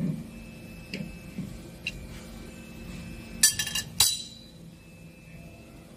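Steel wrench clinking against the metal cap and fittings of a Y-type strainer as the cap is loosened: a few light clicks, then a quick run of metallic clinks about three and a half seconds in and one sharper ringing clink right after.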